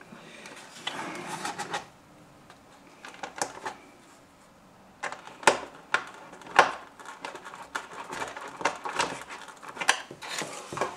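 Hands handling and fitting the plastic and foam parts of a ready-to-fly RC model plane on a workbench: soft rustling at first, then scattered small clicks and taps that come sharper and more often about halfway through.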